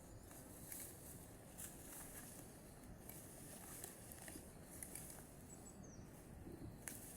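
Faint rain: a low, even hiss with single drops ticking irregularly and sharply over it.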